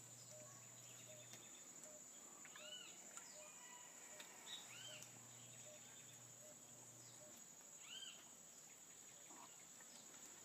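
Faint outdoor ambience: a steady high-pitched insect drone, with a few short arched bird calls now and then.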